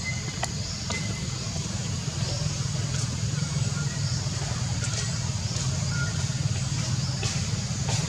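Steady low rumble with a faint high hiss above it and a few sharp clicks scattered through.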